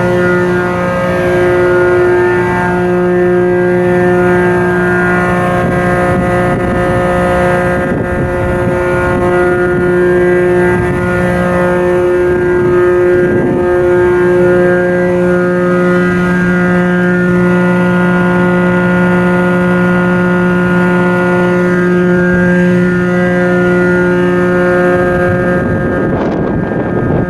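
A ship's diesel engine running steadily at constant speed during a sea trial: a loud, even hum with a fixed pitch under a rushing noise.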